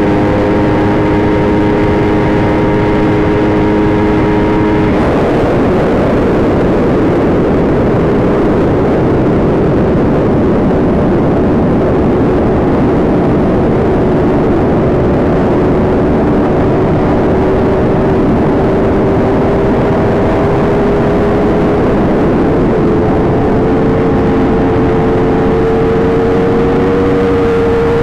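Yamaha R1 sport bike's inline-four engine running under way: a steady engine note for the first five seconds, then a rush of noise over the engine, whose pitch climbs slowly toward the end as the bike gathers speed.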